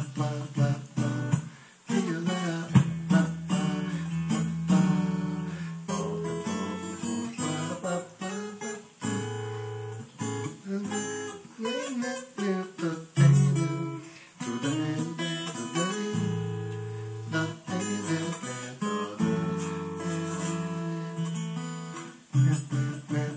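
Acoustic guitar played solo, picked melody notes over bass notes and chords, with a few strummed chords.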